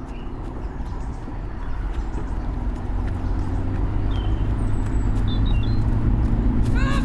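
A low, steady rumble that swells gradually louder, with a few faint bird chirps over it and a short higher-pitched call right at the end.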